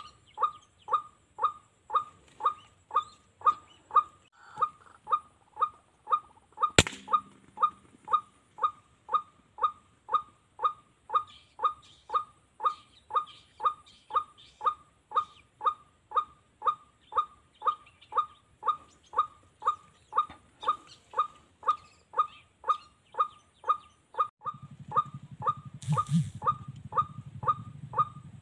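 Bird call played from an electronic bird caller (MP3 caller): a ruak-ruak (white-breasted waterhen) call repeating with machine-like evenness, about two calls a second, to lure birds. A single sharp crack cuts in about seven seconds in, and a low rumble joins in the last few seconds.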